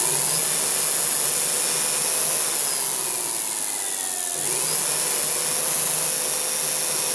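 Electric hub motor, driven by Nucular controllers, spinning its raised wheel at high speed: a steady whir with a high electric whine. The pitch sags briefly about four seconds in, then climbs again.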